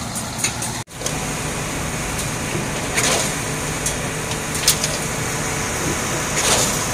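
Steady drone of a concrete boom-pump truck's engine running, with a few short sharp clicks on top. The sound cuts out for an instant about a second in.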